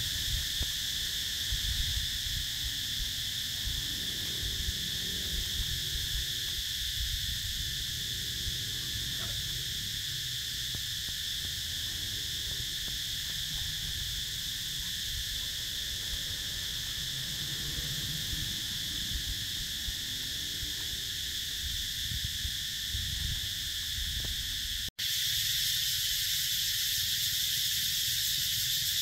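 Steady high-pitched insect chorus drones without a break, with a low rumble underneath. Near the end it cuts out for an instant and comes back louder.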